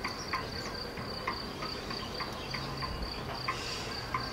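Cricket chirping in a steady, evenly pulsing high trill, with scattered faint clicks underneath.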